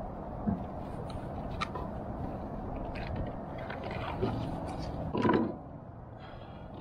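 Scattered scrapes, clicks and knocks from handling a freshly caught fish and tackle in a kayak, over steady low background noise. The loudest clatter comes a little past five seconds in.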